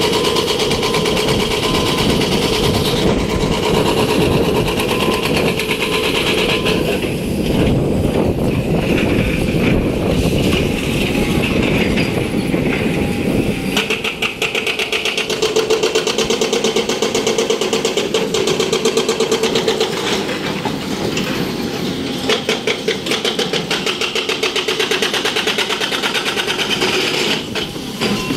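Diesel engine of a working SANY hydraulic excavator running steadily, with a steady pitched whine over it; the deep rumble thins out about halfway through.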